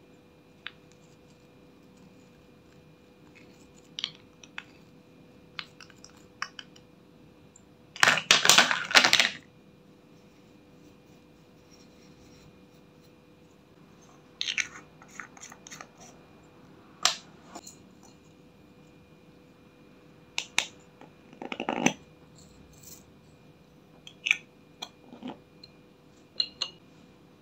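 Scattered clicks, taps and scrapes of makeup pots, lids and a small tool handled over a glass baking dish as makeup is added to clear slime. A louder, longer scrape comes about eight seconds in and a shorter one near twenty-two seconds.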